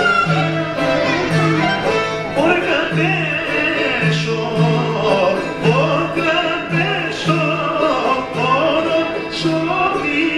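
Greek folk dance music: a singing voice with violin over a low bass note about once a second, accompanying a circle dance.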